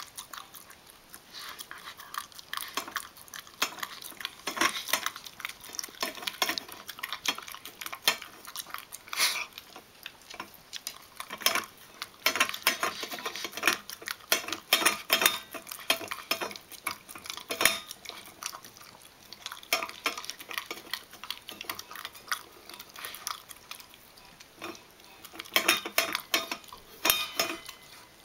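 A basenji eating from a stainless-steel bowl set in a wire stand: irregular clinks and rattles of the metal bowl as she works at her food. The clinking is busiest around the middle and again near the end.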